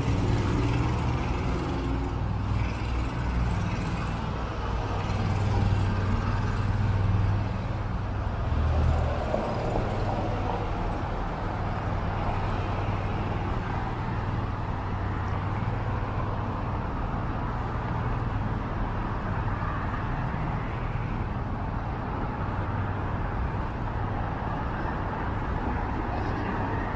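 City street traffic: cars and other vehicles running and passing in a steady low rumble, swelling a little as one passes about six to nine seconds in.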